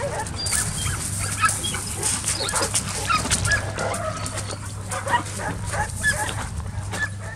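Dogs barking and yipping in short scattered calls, with frequent crunches and clicks on gravel.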